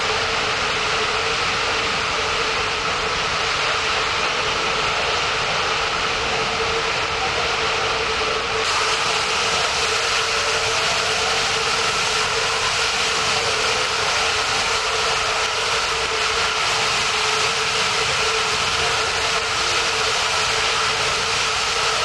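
Natural gas escaping under pressure from a ruptured valve and burning as a jet of flame: a loud, steady rushing hiss with a steady tone under it.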